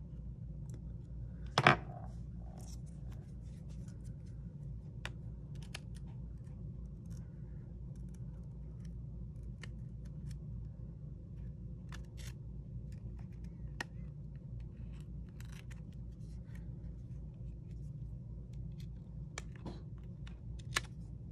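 Scattered small clicks and taps of a precision screwdriver and small repair tools handled against an iPhone 6's metal case, over a steady low hum, with one sharper click a little under two seconds in.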